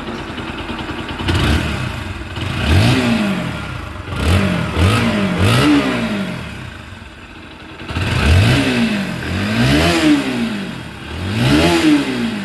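Freshly rebuilt Bajaj Pulsar NS160 single-cylinder engine running at a fast idle and revved in a series of quick throttle blips, each rising and falling in pitch, settling back to idle between them. It runs clean with no rattle, like an original engine.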